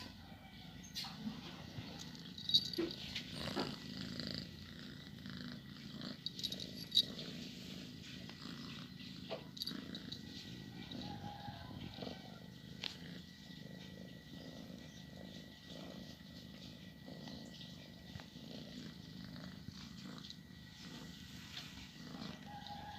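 Domestic cat purring steadily in a low, continuous rumble, with a few sharp clicks scattered through it.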